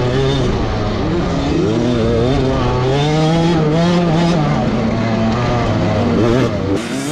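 Motocross dirt bike engine heard up close from the bike itself, revving up and down in pitch as the rider works the throttle and gears over the rough track, with wind and dirt noise beneath. The sound drops off abruptly near the end.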